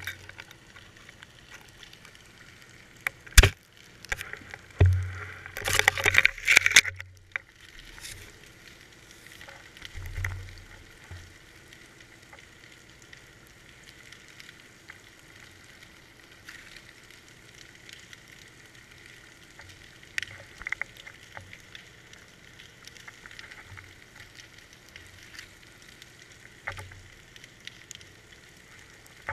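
Underwater sound heard through a GoPro's waterproof housing on a deep fishing rig: a steady muffled hiss with scattered clicks. There is a sharp click about three seconds in, a low thump, then a loud burst of crackling and knocking around six seconds in, and a softer thump about ten seconds in.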